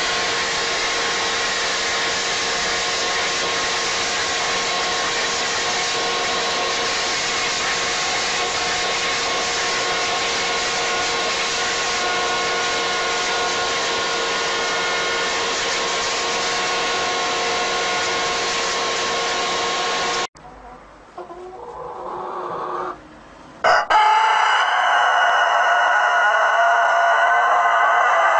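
Leaf blower running steadily with a constant whine for about twenty seconds, then cutting off abruptly. A few seconds later a rooster begins one long, drawn-out crow that is still going at the end.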